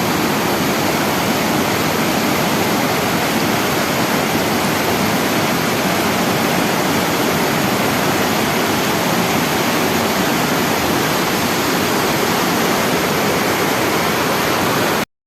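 Loud, steady rushing of a waterfall on a swift river, with no change in pitch or rhythm; it cuts off abruptly near the end.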